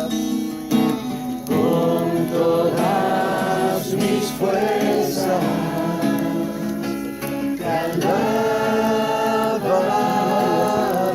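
A group of voices singing a Christian worship song together with acoustic guitar, the singers holding long notes.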